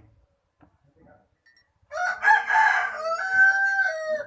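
A rooster crowing: one loud call of about two seconds, starting about two seconds in.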